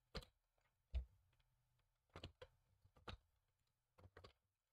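Scattered light clicks and taps of small model parts and a screwdriver being handled, the sharpest about a second in, with near silence between them.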